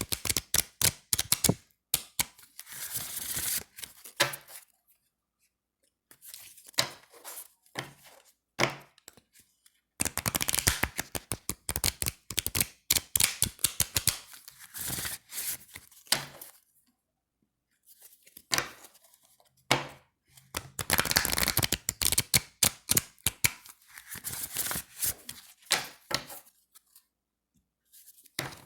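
A deck of slick, thin playing cards being shuffled and handled on a table: runs of rapid fluttering clicks as the cards are riffled, sliding rustles, and now and then a single sharp tap of the deck on the tabletop, with short pauses between passes.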